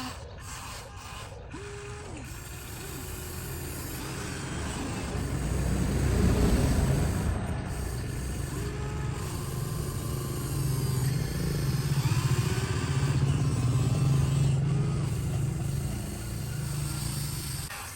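Radio-controlled construction machine working. Its motor sound runs continuously, swelling louder about a third of the way in and again in the later part, with short whines rising and falling in pitch above it.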